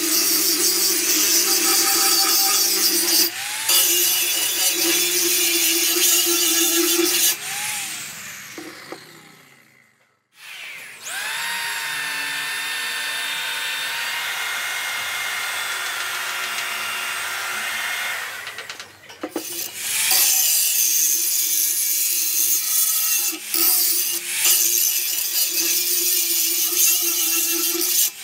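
Angle grinder grinding the steel teeth of a rake, then spinning down to a brief stop. An electric drill with a wire cup brush then spins up and runs steadily for about eight seconds before cutting off, and the angle grinder starts grinding again.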